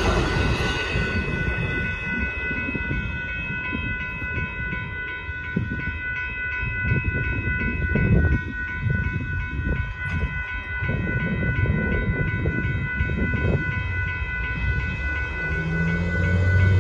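The tail of a passenger train rumbles past and fades in the first second, then a grade-crossing warning bell rings steadily with evenly repeated strikes over an irregular low rumble. Near the end, a car engine comes in as traffic starts across the tracks.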